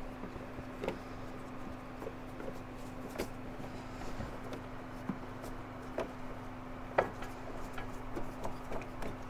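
Scattered light clicks and knocks of hands handling spark plug wires and parts in a car's engine bay, the sharpest about seven seconds in, over a steady low hum.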